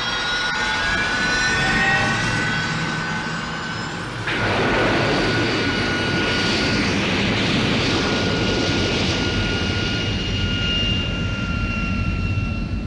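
MechaGodzilla film sound effect of a jet-engine-like mechanical whine. A steady high whine is joined about four seconds in by a sudden loud rush, like thrusters firing.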